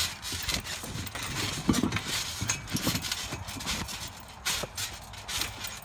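Irregular thumps and rattles of a backyard trampoline as two people bounce on its mat while playing basketball.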